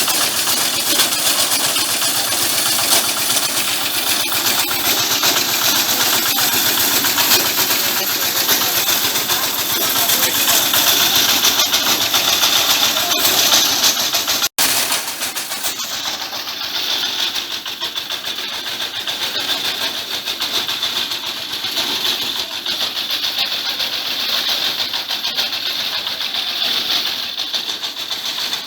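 Septic vacuum truck's engine and suction pump running steadily while sucking out a septic tank, with a loud, even rushing noise. A momentary break about halfway, after which it runs on a little quieter.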